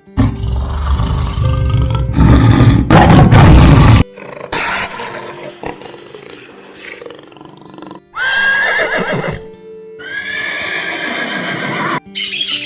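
Background music under a string of short animal-call clips cut together every couple of seconds. The loudest section is a noisy stretch in the first four seconds; about eight seconds in comes a call that leaps up in pitch and falls away, and another drawn-out call follows.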